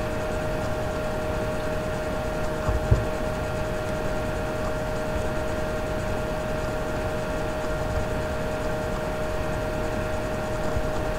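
Steady background hum and hiss with a constant tone, like a running fan or appliance in the room. One brief knock about three seconds in.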